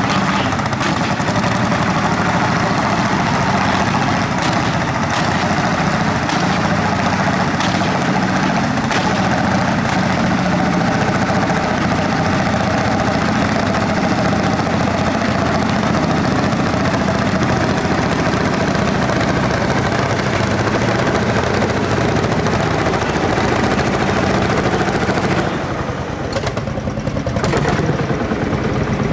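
Two vintage single-cylinder hot-bulb tractor engines, a Lanz Bulldog-type and an Ursus, running hard under load as the tractors pull against each other, with a fast, steady stream of exhaust pulses. The sound drops off briefly near the end.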